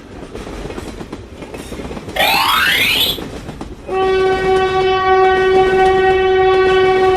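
Train running with a clattering rumble. About two seconds in, a quickly rising whistle-like note sounds for about a second. From about four seconds, a train horn holds one steady note.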